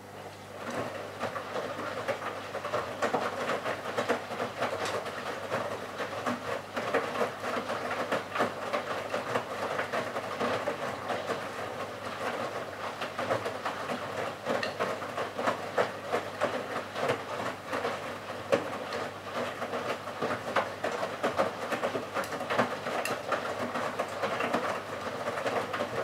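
Bosch Serie 6 WAQ283S1GB front-loading washing machine turning its drum, with the laundry tumbling in a dense run of soft knocks and swishes over a steady motor hum. The drum starts turning about half a second in.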